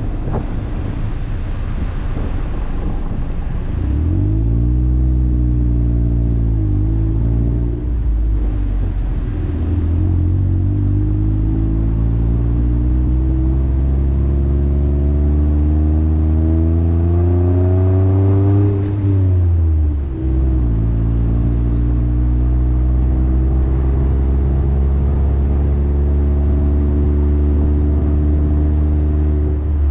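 Motorcycle exhaust through a Yoshimura Slip-On Oval Cyclone muffler while riding: the engine note climbs under acceleration, drops sharply at a shift or roll-off about two-thirds of the way in, then holds steady at cruise. Wind noise hisses over the microphone.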